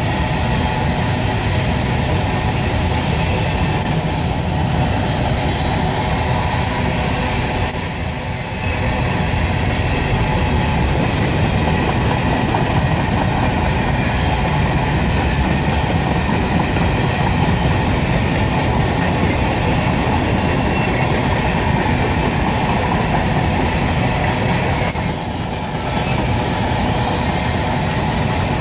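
Covered hopper cars of a CSX freight train rolling past: a loud, steady rumble of steel wheels on the rails. It briefly dips in level twice, about eight seconds in and near the end.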